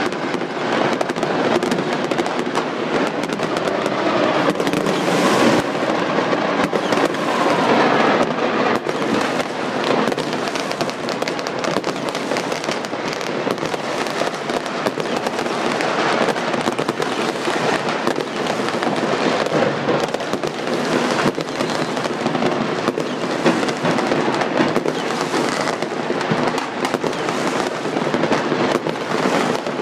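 Dense, continuous popping and crackling of many fireworks and firecrackers going off at once all over a city, with no single bang standing out from the rest.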